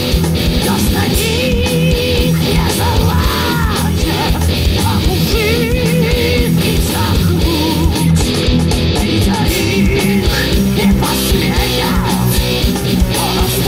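Heavy rock song with electric guitars over a steady driving beat, with a melody line wavering in pitch.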